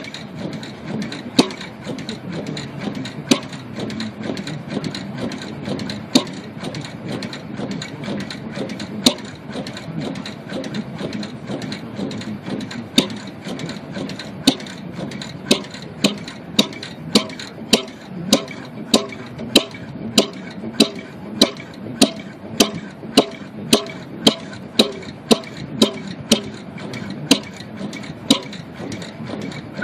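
Gas engine of an oil-well pump jack running with sharp, regular knocks. The knocks come about one every two seconds at first and about one and a half a second from about halfway on, over a low rumble.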